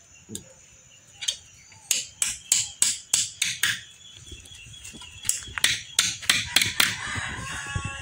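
Claw hammer striking nails into a wooden board. The strikes come in two quick runs, about three a second, with a pause of about a second and a half in the middle.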